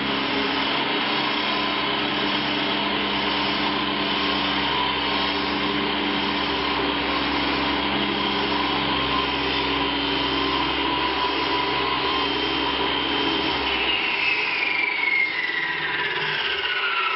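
Wall chaser (twin-blade groove-cutting saw) running steadily while cutting wiring grooves into a wall, with a dust-extraction vacuum running along. About 14 seconds in it is switched off and its whine falls steadily in pitch as the motor spins down.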